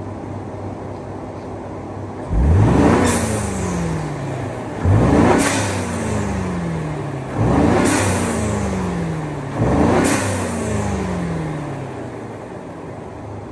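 A 2018 Ford F-150's 3.5-litre twin-turbo EcoBoost V6 idles, then is revved four times, each rev rising quickly and falling back to idle. A sharp hiss at the top of each rev is the newly fitted Turbosmart blow-off valve venting as the throttle closes.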